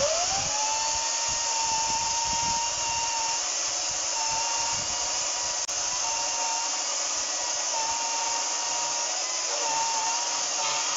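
HYCHIKA 36V brushless battery chainsaw spinning up at the start, then running steadily with a high motor whine while its chain saws through a solid log, the pitch dipping slightly now and then under load. Not very loud for a chainsaw: really quiet compared with a petrol one.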